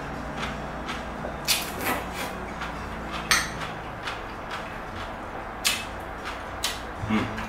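Mukbang eating sounds: slurping and chewing linguine in scampi sauce, with about half a dozen short, sharp smacks and clicks of mouth and utensils.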